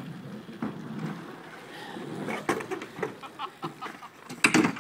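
Kick scooter wheels rolling over asphalt, with scattered knocks and clatter of scooters on the skate park ramps. The loudest sound is a quick cluster of hard knocks near the end.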